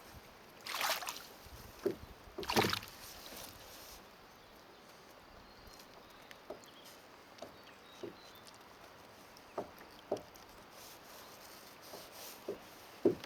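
Water around a kayak: two splashy swishes in the first few seconds, then scattered soft knocks against the hull.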